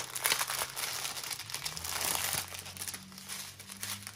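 Clear plastic bags of diamond painting drills crinkling as they are handled. The crinkling is busiest in the first couple of seconds and thins out after that, with a faint steady low hum underneath.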